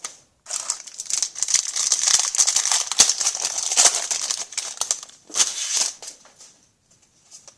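Trading-card pack wrapper crinkling as it is handled and torn open: a dense rustle lasting about four and a half seconds, then a shorter rustle just before six seconds in.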